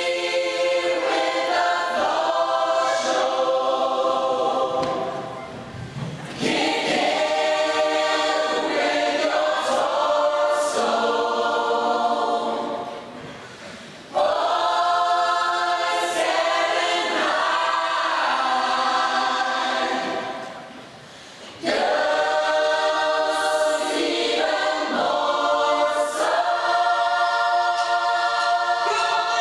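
Large mixed choir singing in full chords, in long phrases broken by three short pauses of about a second.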